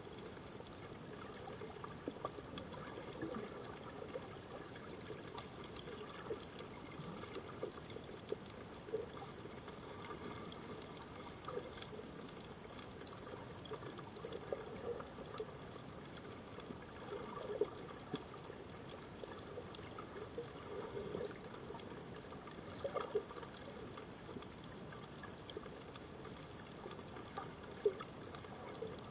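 Underwater reef ambience heard through a camera housing: a steady hiss with many faint scattered clicks and crackles, and a few sharper ticks.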